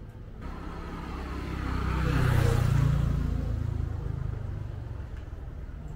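A motor vehicle passes by on the street, its engine and tyre noise swelling to a peak about two and a half seconds in, then fading away.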